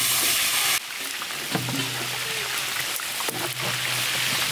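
Sliced onions poured into hot oil in a large steel frying pan, a loud hiss at first, then the onions sizzling steadily in the oil. A few light knocks from a ladle stirring against the pan.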